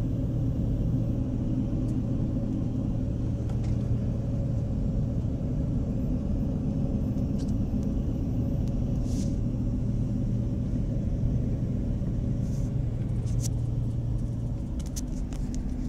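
Car interior driving noise: a steady low rumble of engine and tyres on the road, with a constant engine hum that drops away shortly before the end.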